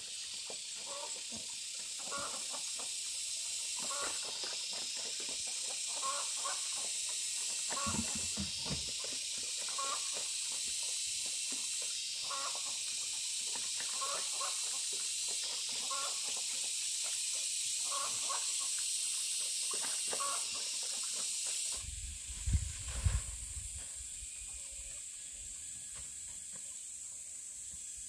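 Outdoor farmyard ambience: a steady high hiss, with a short animal call repeating about every two seconds. Near the end the calls stop and a couple of low thumps are heard.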